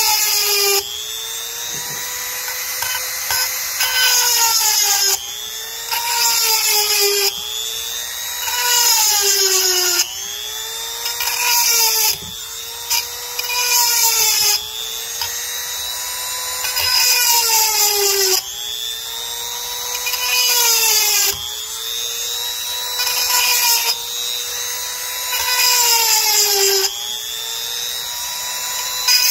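Handheld rotary tool with a 7/32-inch grinding stone sharpening chainsaw chain cutters one tooth at a time. The motor whines steadily and its pitch dips each time the stone bears on a tooth, with a harsh grinding hiss about every two and a half seconds.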